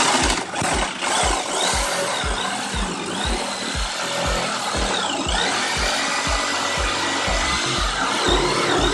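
NRT Pro JS65HD electric jigsaw cutting through a wooden board, its motor whine dipping and rising in pitch under load, over background music with a steady beat.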